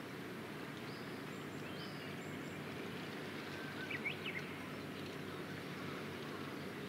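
Steady low rumble of open-air harbour ambience, with a few faint high bird chirps about a second in and a quick pair of rising chirps about four seconds in.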